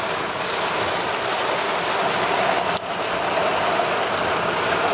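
Heavy rain falling on a car's roof and windscreen, heard from inside the cabin, mixed with the steady noise of the car driving through flooded road. The noise is even throughout, with one brief drop almost three seconds in.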